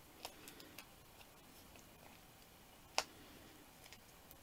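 Faint ticks and light clicks of fingers handling cardstock while pressing dimensional foam adhesive pads onto the back of a card panel, with one sharper click about three seconds in.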